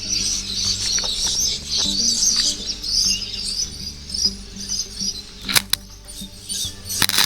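Welding arc on car body sheet metal crackling and spitting irregularly, with sharper pops near the end, over background music.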